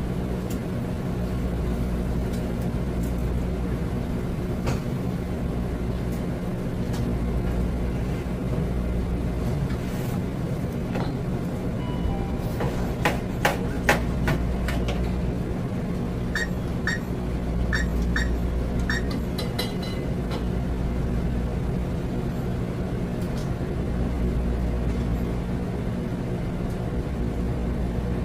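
Steady low mechanical hum of the room's equipment. About halfway through there are a few sharp metallic clicks and knocks as a metal roller grill roller is handled and fitted into its bearing holes. They are followed by several short high chirps.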